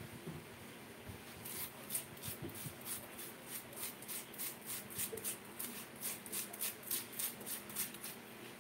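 A cooked potato being scraped out by hand: quick, even scraping strokes, about four a second, starting about a second and a half in and stopping near the end.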